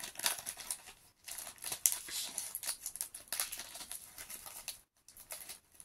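Foil wrapper of a counterfeit Pokémon booster pack crinkling and tearing as it is worked open by hand, a run of irregular crackles with short pauses about a second in and near the end.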